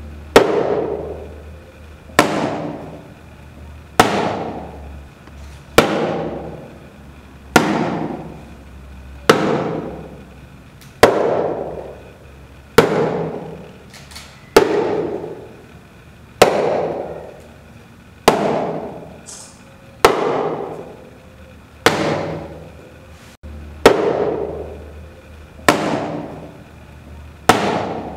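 A sharp percussive strike repeated evenly about every two seconds, each hit ringing out and fading before the next.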